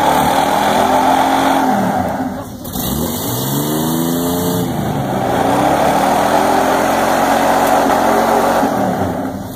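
Pickup truck engines, a stock 4.9L inline six and a built 350 small-block Chevy V8, revving hard under load in a tug of war, with tyres spinning and smoking on the pavement. The revs drop briefly about two and a half seconds in, then climb and hold again.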